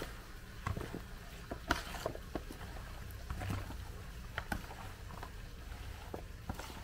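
Wooden spoon stirring chillies, carrot sticks and shallots coated in a thick spice paste in a plastic basin: irregular soft clicks and knocks as the vegetables are turned over, over a low steady hum.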